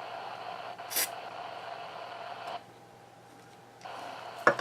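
A short spritz from an aerosol can of CRC contact cleaner, sprayed into a radio scanner's potentiometer to clean it, about a second in. A sharp click near the end.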